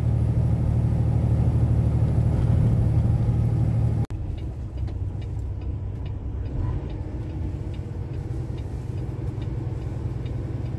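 Semi truck engine and road rumble heard in the cab: steady and loud at highway speed on wet road, then after a sudden cut about four seconds in, a quieter low-speed engine rumble with faint regular ticks.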